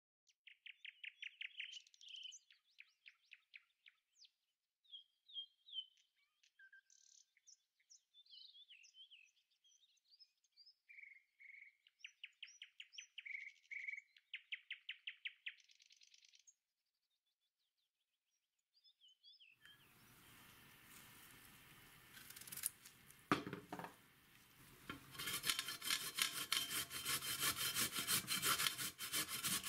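Birds chirping and trilling for the first half. Then, after a short silence, a courgette is rubbed down a flat metal hand grater into a bowl: a knock, then quick repeated grating strokes near the end.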